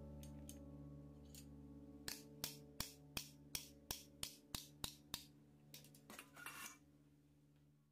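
Quiet background music fading out: a held chord dies away, with a run of light, evenly spaced clicks about three a second in the middle.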